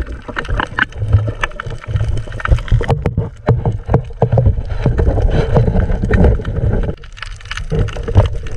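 Water noise picked up by a camera held underwater: a steady low rumble and gurgling with many sharp clicks and knocks. The rumble thins out about seven seconds in while the clicks go on.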